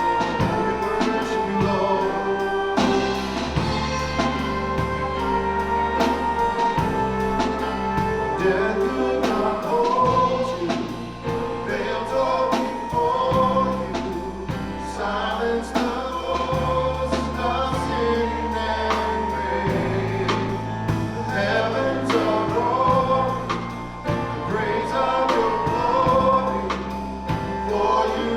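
Church worship band and singers performing a gospel song: steady bass and drum kit beat under a group of voices singing the melody.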